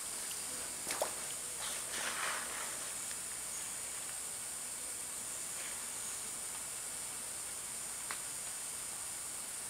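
Rainforest ambience: a steady high-pitched hiss, with a couple of faint footsteps on the stony stream bank about one and two seconds in.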